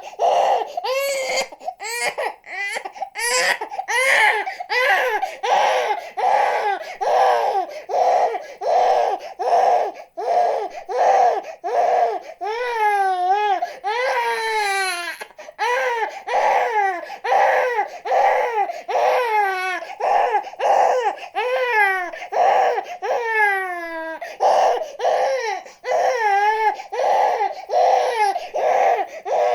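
Infant crying hard and without pause: a rapid string of short wails, about two a second, with a few longer wails that fall in pitch around the middle.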